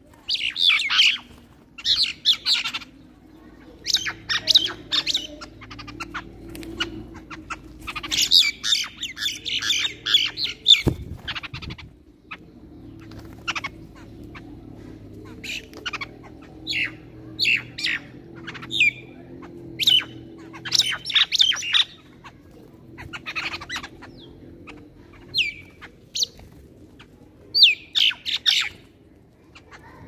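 A mixed flock of common mynas and jungle babblers squawking and chattering in harsh bursts every second or two as they squabble over food on the ground.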